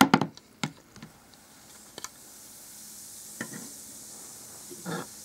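A bath bomb goes into a basin of water with a short splash. It then fizzes with a faint, steady hiss that builds from about two seconds in as it dissolves.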